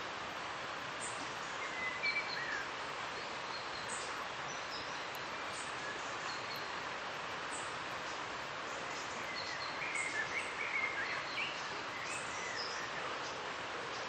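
Steady rushing of a river with small birds chirping over it. The chirping comes in clusters about two seconds in and again around ten to eleven seconds.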